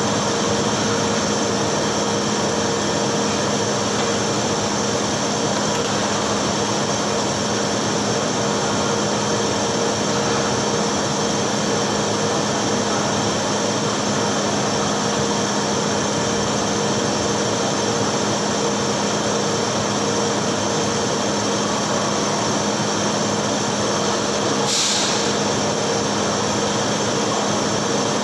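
TIG welding arc burning on thick steel plate: a steady, unbroken hiss with a constant hum underneath, held for a long bead, with a brief brighter flare near the end.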